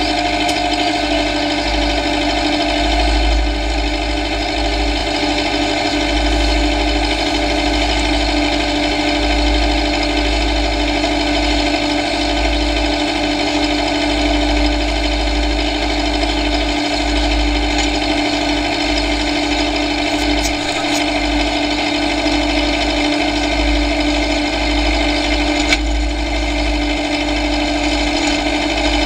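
John Deere tractor's diesel engine running steadily at a constant speed, with a strong even hum.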